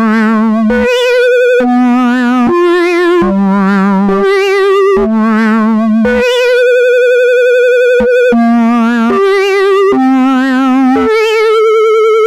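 Synthesizer melody of held, wavering notes, about one a second, hopping between low and high pitches, with one longer held note midway.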